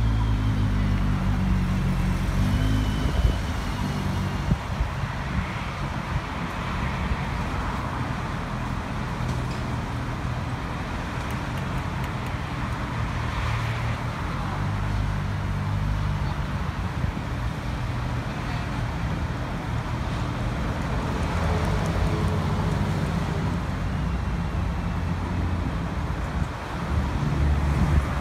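Road traffic at an intersection: engines running and vehicles passing, with a low engine rumble that is strongest near the start and again near the end.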